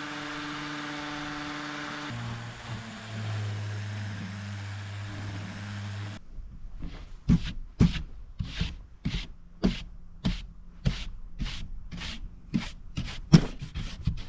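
An electric power tool works on a wooden board, running steadily. Its pitch drops about two seconds in, and it cuts off abruptly about six seconds in. Rhythmic rubbing strokes on the wood follow, about two a second, like hand sanding of the freshly chamfered edges.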